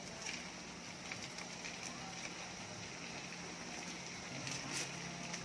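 Corn cobs cooking in a sauce in a wok: a steady sizzle with scattered crackles and pops, a couple of sharper ones about four and a half seconds in.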